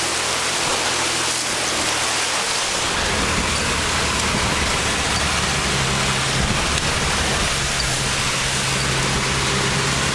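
Jeep Cherokee driving through muddy water: a steady hiss of water spraying up from the tyres and splashing the body and windscreen, with the engine's low steady drone coming in about three seconds in.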